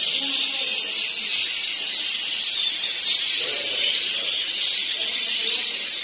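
Canary singing a continuous, dense high-pitched trilling song that runs on without a break.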